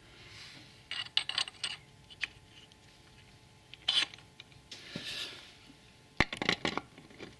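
Short clusters of light metallic clicks, clinks and scrapes as a new ATV clutch assembly is handled and slid onto the engine's shaft, locating over the cogwheel teeth; the sharpest clatter comes near the end.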